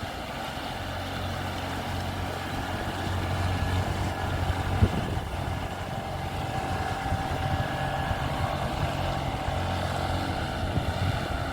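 Boat engine running steadily with a low hum, with a single short knock about five seconds in.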